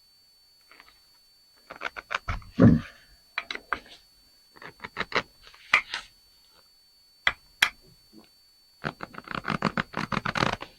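Clicks, knocks and light rattles of an outdoor light fixture being handled and taken apart by hand, in scattered bunches, with a heavier knock between two and three seconds in and a busier run of clicks near the end.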